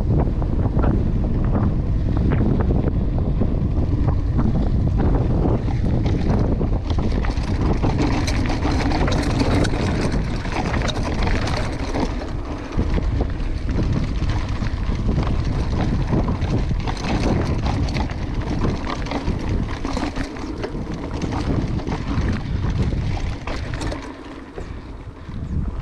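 Wind buffeting the microphone of a moving mountain bike, over a steady clatter of tyres and frame on rough ground. The sound eases briefly near the end.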